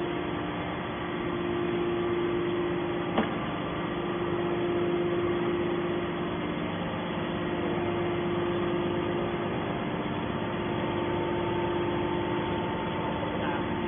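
Hydraulic metal baler's power unit running steadily, a motor-driven pump humming at a constant pitch, with one sharp click about three seconds in.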